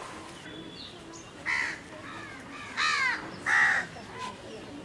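A crow cawing four times, about three-quarters of a second apart, the last two calls the loudest.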